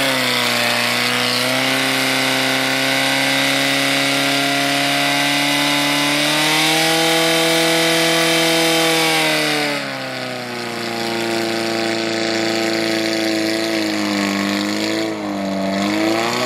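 Portable fire pump's petrol engine running flat out, driving water through the hose lines to the nozzles. About ten seconds in its revs drop, then rise and fall unevenly near the end.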